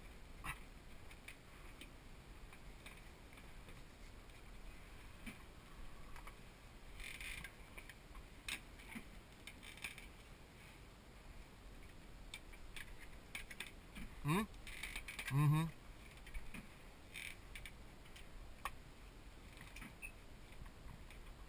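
Small gear handled by hand, giving scattered light clicks and rattles. Two short rising tones, the loudest sounds, come about two-thirds of the way in.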